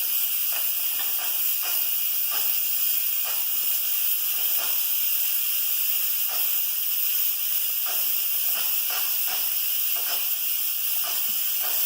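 Steam hissing steadily out of an 8-quart Instant Pot's pressure-release valve turned to vent, letting off the remaining pressure after cooking, with faint irregular crackles underneath.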